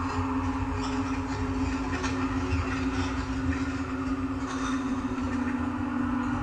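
A steady droning hum over a low rumble, with a held tone that dips slightly in pitch about five seconds in.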